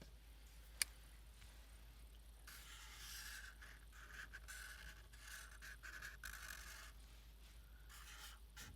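Faint scraping and rubbing, as of paper being handled or creased, with a single sharp click a little under a second in and a few seconds of uneven scraping in the middle.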